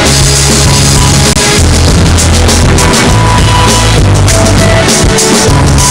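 Loud background music with a steady beat and a bass line.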